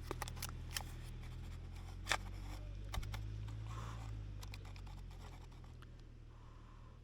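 A spoon clicking and scraping in a pouch of rehydrated dal rice as it is stirred and eaten, in irregular small ticks, with a low rumble underneath that fades near the end.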